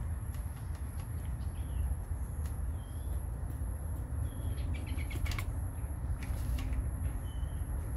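Outdoor ambience: a small bird giving short chirps about once a second, over a steady high-pitched whine and a low rumble, with a few sharp clicks a little past the middle.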